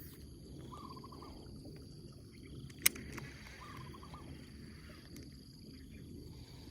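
Outdoor ambience with a steady high insect drone and a short stepped call repeating about every three seconds. A single sharp click sounds just under three seconds in.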